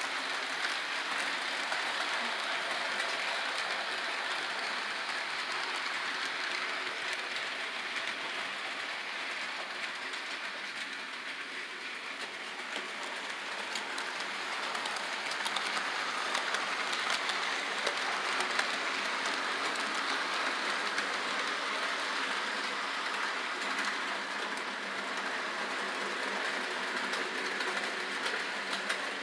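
HO-scale model freight train running on sectional track: a steady rolling rattle of the cars' wheels on the rails, with light scattered clicks.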